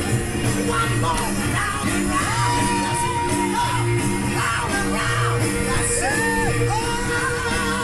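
Music with a steady, repeating bass beat and a sung melody of long held notes, with people yelling over it.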